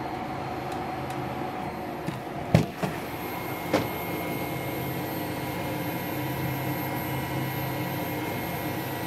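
Custom-built 3D printer running a print: a steady mechanical hum with several steady whining tones from its stepper motors as the extruder carriage moves along its rods. A sharp click about two and a half seconds in, and a fainter one a second later.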